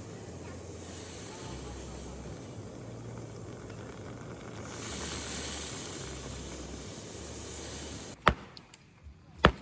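A steady rushing hiss that swells about halfway through, then stops abruptly. Two sharp knocks follow about a second apart, from a blade striking firewood.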